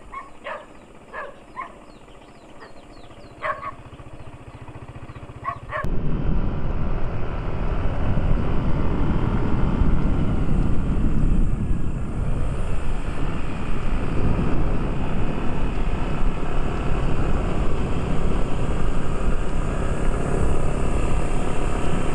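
A few short, distant dog barks over a quiet background, then an abrupt cut to loud, steady wind rush and engine noise from a moving vehicle.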